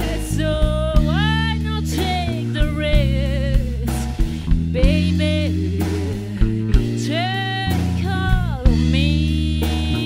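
A live band plays while a woman sings held notes with a wavering vibrato over a drum kit and steady low bass notes.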